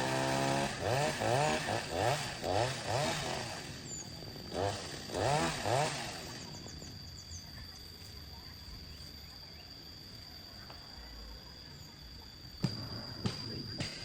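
Chainsaw revved up and down in a quick series of short throttle bursts, then dropping away to a quieter steady background. Two sharp knocks sound near the end.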